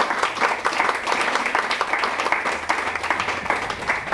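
Audience applause: many hands clapping at once, dense and steady.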